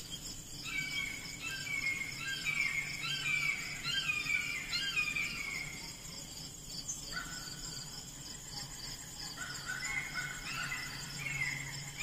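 Birds singing in runs of quick falling chirps, pausing for a few seconds in the middle and starting again near the end, over the steady pulsing trill of insects such as crickets.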